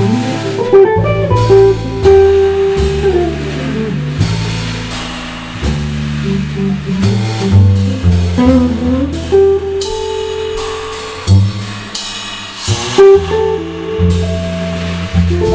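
Jazz trio playing live: guitar lines with sliding notes over a bass line and drum kit.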